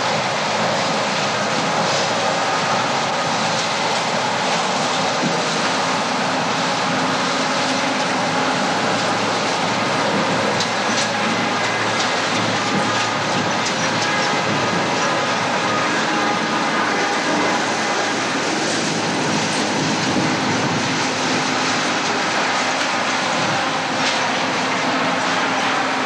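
John Deere 8820 combine running steadily while harvesting soybeans: a dense, even mechanical drone of its diesel engine and threshing machinery, with a few faint clicks in it.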